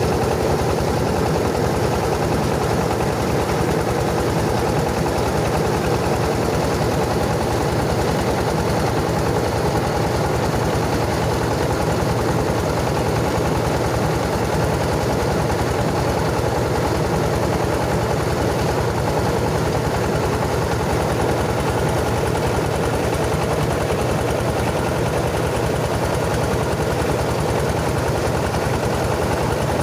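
Yanmar 20 single-cylinder diesel engine running steadily under load as it drives a rice huller, with a fast, even knocking beat and the constant hiss and rattle of the milling machine.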